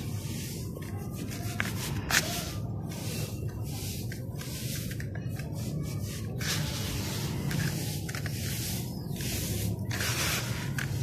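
Dry dirt-and-sand balls crumbling in water, giving off a steady hiss with a few faint crackles.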